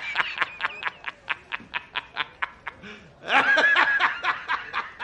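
A man laughing hysterically in rapid, repeated bursts, about four or five a second, breaking about three seconds in into a long, high-pitched held laugh before the quick bursts start again.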